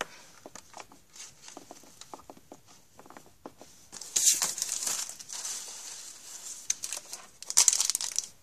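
Wrapper of a hockey card pack crinkling and tearing as it is worked open by hand: light rustles and clicks at first, then a long crinkle about four seconds in and another loud burst near the end. The pack is hard to open and ends up torn apart.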